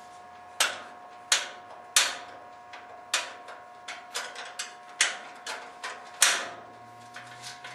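Irregular sharp knocks and clanks of hand tools on car parts during disassembly: about six loud ones, each ringing briefly, with smaller clicks between them over a faint steady hum.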